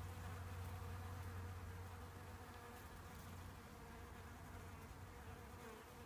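Honeybee buzzing as it works the flowers, a steady low hum that is strongest for the first two seconds or so and then a little fainter.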